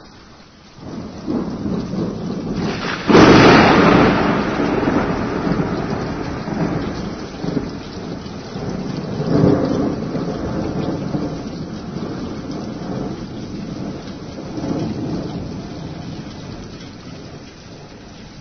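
Thunderstorm with steady rain. Thunder rumbles in about a second in and breaks into a sharp, loud crack about three seconds in, then rolls on and slowly fades. Two more swells of rolling thunder come around nine and fifteen seconds in, with the rumbling dying away near the end.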